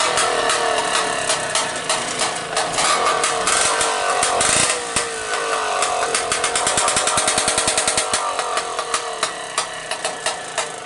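Vintage Vespa's two-stroke single-cylinder engine running on a stand out of its frame, popping at idle, revved up twice, then dropping back to a slow, uneven popping idle near the end.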